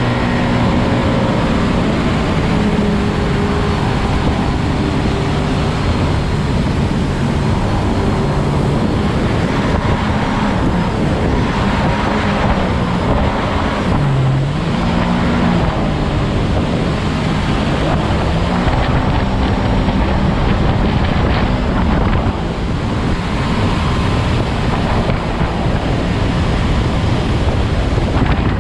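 Jet boat under way at speed: its engine running steadily, with water rushing from the jet wake and wind buffeting the microphone. The engine note dips briefly about halfway through and then comes back up.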